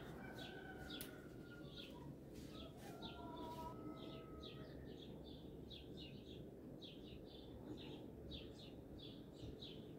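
Faint bird chirping: a steady run of short, high chirps, a few a second, with some thin whistled notes in the first few seconds.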